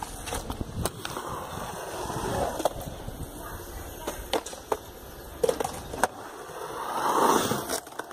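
Skateboard wheels rolling on concrete, with several sharp clacks of the board striking the ground. The rolling noise swells and is loudest about seven seconds in.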